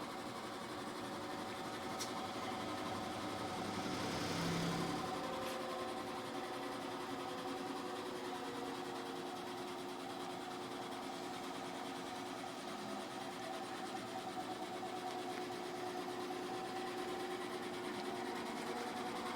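A machine unit running with a steady mechanical hum of several tones, swelling louder about four seconds in, with a couple of faint clicks. It is part of a cycle the owner finds odd, in which it cuts on, makes these noises and then just stops.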